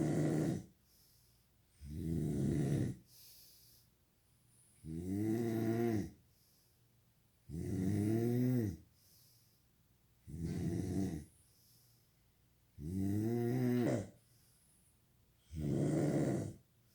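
Snoring in a steady rhythm: seven pitched snores of about a second each, one roughly every two and a half seconds, some bending in pitch as they go.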